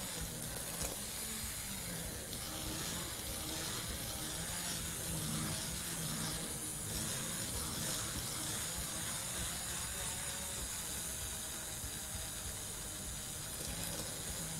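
Electric hand blender running steadily in a pot, puréeing a thick mixture. Its steady whirring hiss holds at an even level.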